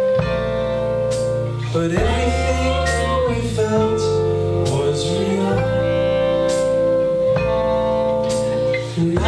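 A live band playing: a long held melody line that bends up and down in pitch over a steady bass line, with regular cymbal and drum hits.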